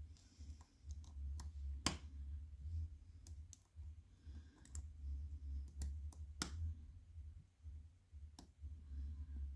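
Small irregular metal clicks of a lock pick and tension tool working the pins inside a challenge lock, two of them much sharper than the rest, over a low rumble of handling noise.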